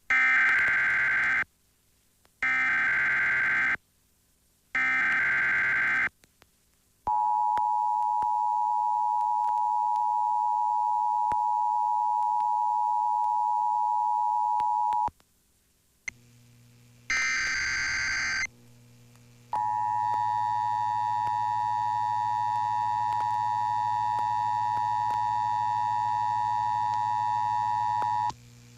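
Emergency Alert System broadcast tones. Three harsh digital data bursts of the SAME header, each about a second and a half long, are followed by the steady two-tone attention signal held for about eight seconds. After a short break with a low hum, a brief data burst comes and then a second two-tone attention signal with a low hum under it runs for about nine seconds, as the next station's relay of the same test begins.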